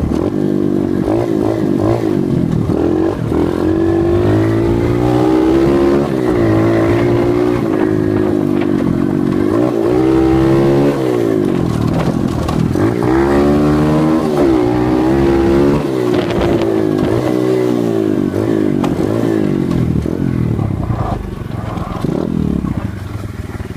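Dirt bike engine revving as the bike is ridden along a rough trail, its pitch rising and falling every few seconds with the throttle. It eases off and runs quieter near the end.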